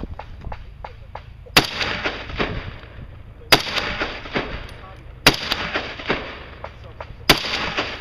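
Four single rifle shots fired about two seconds apart from a semi-automatic rifle close by, each trailed by a short run of echoes.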